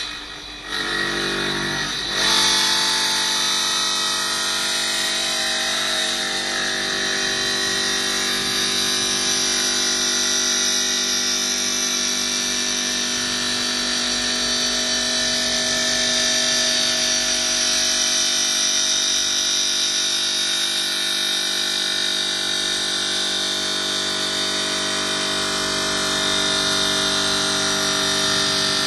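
CNC stone bridge saw with a diamond blade, running. It is quieter for about the first two seconds, then settles into a steady whine of several tones over a high hiss.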